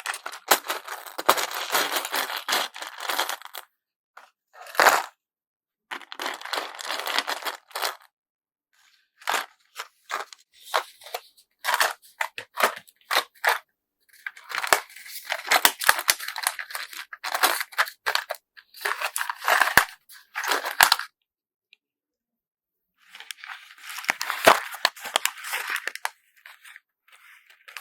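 Packaging being handled and crinkled by hand, in bursts of rustling and crackling that come in clusters of a few seconds with short silent gaps between them.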